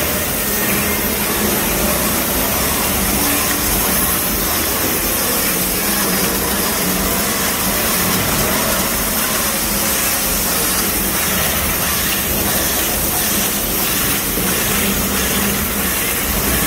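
Steady, loud hum and hiss of running industrial machinery, with no clear rhythm.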